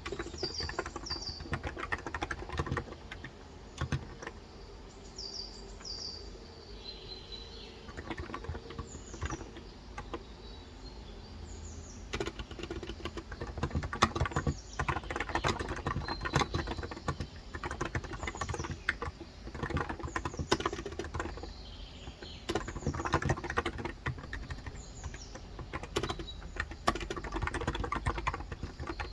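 Typing on a Cox Endeavor electro-capacitive 35 g tenkeyless keyboard: irregular runs of soft keystrokes with a lull in the first third. Birds chirp in short falling calls in the background.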